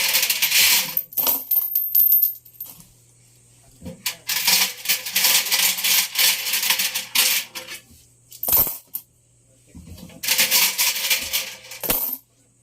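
Coins and loose metal objects clattering and rattling inside a tumbling Electrolux washing machine drum, in bursts of a few seconds with pauses between as the drum stops and turns again.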